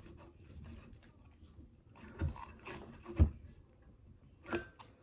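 Handling noise from Roman candle tubes being gathered and knocked together: a few light knocks and rubs, the loudest about three seconds in.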